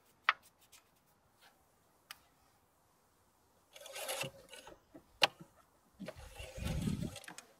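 Hands handling the engine's dipstick: a few sharp clicks and two spells of rubbing and scraping as the dipstick is wiped on a rag and pushed back down its tube, with a dull bump near the end.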